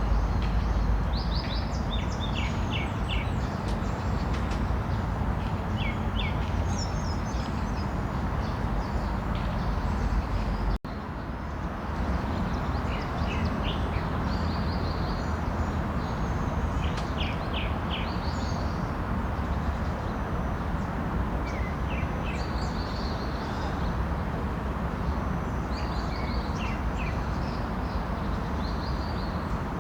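Small birds chirping and trilling again and again over a steady low rumble of background noise. The sound cuts out for an instant about eleven seconds in.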